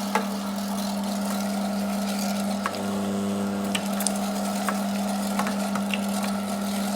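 FAMA electric meat grinder's motor running with a steady hum, with scattered sharp clicks and cracks over it.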